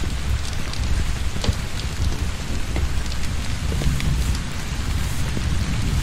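Torrential rain pouring steadily, with a deep low rumble underneath and scattered sharp drop hits.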